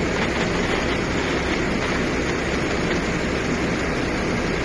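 Fire truck engine running steadily to work its aerial ladder: a constant rumble with a hiss over it.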